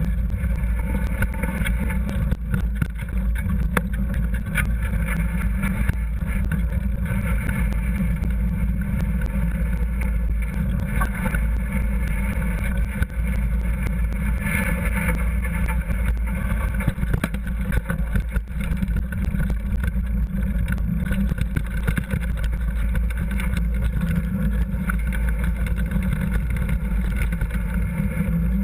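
Mountain bike riding downhill over a rough trail, heard from a camera mounted on the bike: a steady rumble and rattle from the tyres and frame, with frequent small knocks over bumps.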